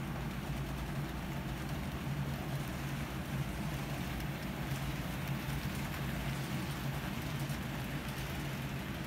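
HO-scale model train, an Amtrak P42 locomotive with passenger cars, running on the layout track: a steady low hum over an even rolling noise from the wheels on the rails.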